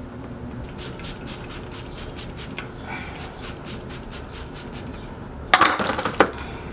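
Quick back-and-forth rubbing of a shop towel wiping a fork part, about four or five strokes a second, then a loud clatter and a second knock as a part is set down in a plastic oil drain pan.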